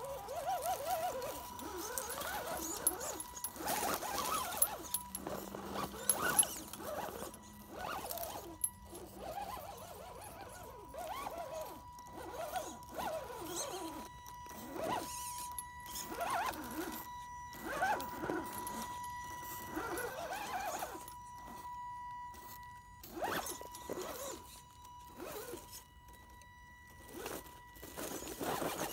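Electric drive of an Axial SCX10 RC rock crawler, a brushed 540 motor, crawling over rocks. A steady high whine runs throughout, with a second, higher whine joining about halfway through, over irregular scraping and crunching of the tyres and drivetrain working on the stones.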